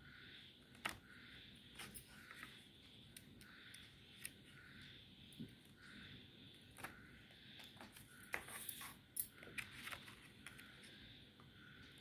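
Near silence with faint crinkles and taps of coloured craft paper being folded and handled by fingers, most of them about eight to ten seconds in.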